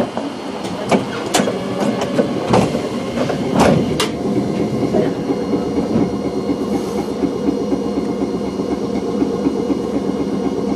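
Streetcar running on its rails, heard from inside the cab: a steady running and rumbling noise from wheels and motors. Several sharp clicks and knocks come in the first few seconds.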